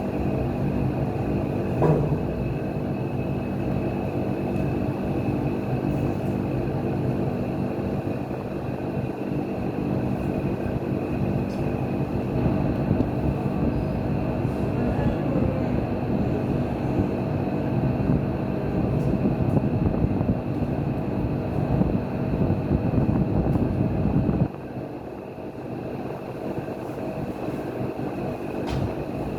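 Steady mechanical running noise with a low hum and several steady tones. It drops noticeably in level about 24 seconds in and carries on more quietly.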